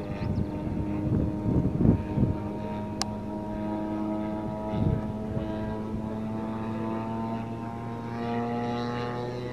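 Engine and propeller of a radio-controlled scale Cessna 182 model plane flying overhead, a steady droning tone. There are a few loud low buffeting noises on the microphone about two seconds in and near the middle, and one sharp click about three seconds in.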